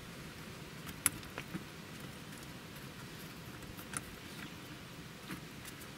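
Fingers working the plastic coolant drain valve under a Jaguar XJR's radiator: a few faint clicks and handling noises, the sharpest about a second in and about four seconds in, as the valve is turned open to drain the coolant.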